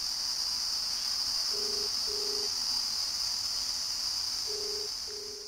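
Telephone ringback tone of a call ringing out: two double rings of a low steady tone, each ring two short beeps, about three seconds apart, the Indian ringback pattern. Under it, a steady high chirring of crickets.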